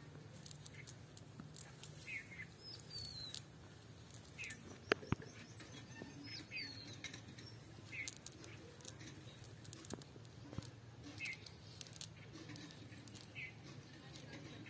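Faint scattered clicks and rustles of a wet cast net being hauled in over grass, the sharpest click about five seconds in. Small birds chirp now and then in the background.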